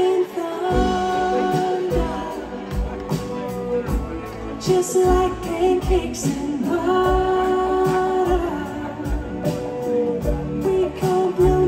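Live pop band performance: a sung melody with long held notes over acoustic guitars, cello and a drum beat, heard through the concert sound system from the audience.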